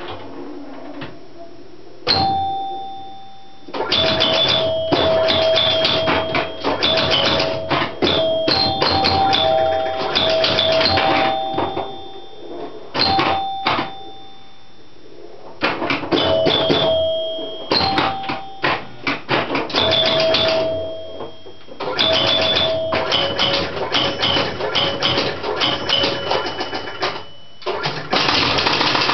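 1971 Gottlieb Sheriff electromechanical pinball machine in play: scoring chimes ring out in a few different pitches over a rapid clatter of clicks from the machine's relays, score reels, bumpers and flippers. There are a few short lulls where the clatter stops.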